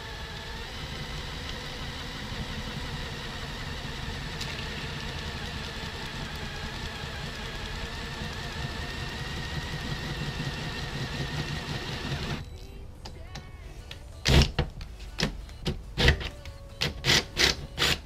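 Cordless drill with a steel bit boring a hole through a steel car trunk lid: a steady motor whine under load for about twelve seconds, which cuts off suddenly. It is followed by a string of short, loud noises near the end.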